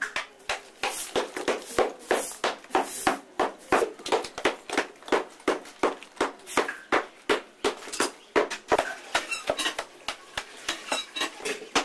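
A small hand tool knocking and chipping at a clay casting mould in quick, steady strikes, about three or four a second, breaking the mould away from the cast metal figure inside.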